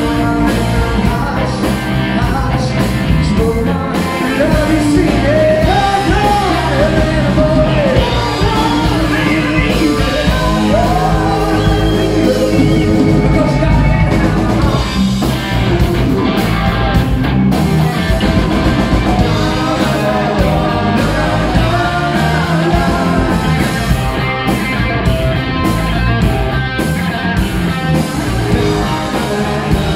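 Live rock band playing: a lead singer over electric guitar, electric bass and drums, loud and steady throughout.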